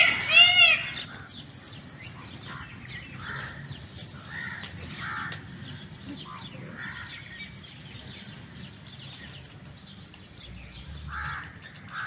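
Indian peafowl calling: a loud run of quick, arching honks that stops about a second in, then softer scattered calls.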